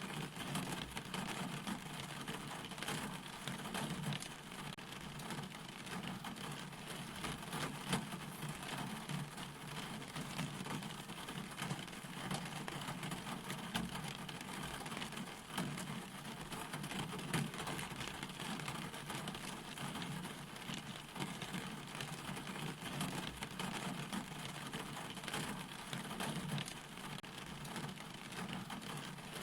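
Steady rain falling, with a dense patter of drops.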